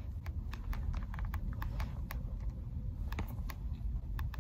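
Light, irregular tapping clicks, a few a second, over a steady low rumble inside a car cabin.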